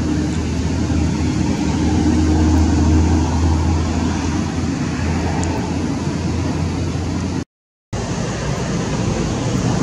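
Steady, low engine rumble, like a motor vehicle running nearby. It swells a couple of seconds in and drops out briefly near the end.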